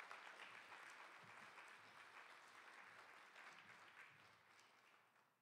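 Faint audience applause that dies away about four seconds in.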